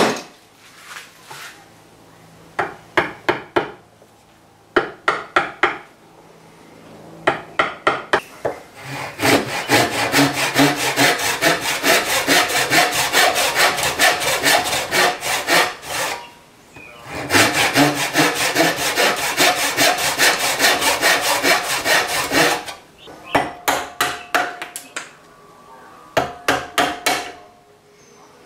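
Brass-backed backsaw cutting a series of crosscut kerfs in a white oak board, in quick back-and-forth strokes. Short bursts of strokes alternate with two long spells of steady sawing in the middle.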